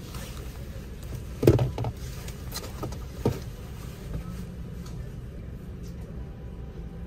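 Low steady rumble of a car running, with a sharp loud knock about a second and a half in and a smaller one a couple of seconds later.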